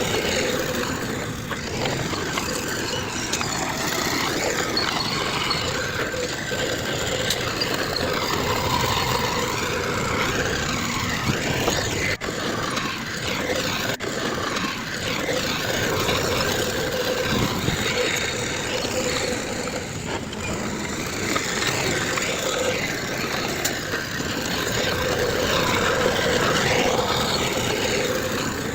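Heavy diesel construction machinery, bulldozer and dump trucks, running steadily at a land-filling site, with a steady engine drone and two brief dips in loudness about halfway through.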